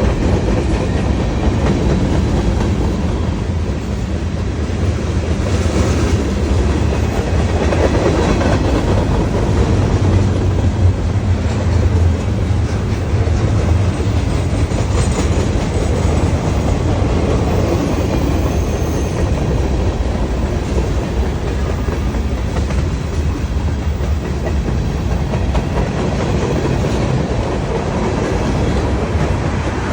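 A train rolling past on the tracks: a steady, loud rumble.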